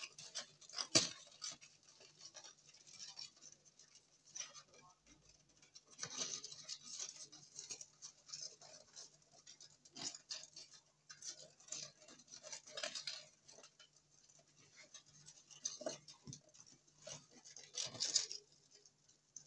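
Longhorn beetles inside a plastic container, giving irregular short scratchy rasps and clicks: legs and bodies scraping on the plastic and on each other.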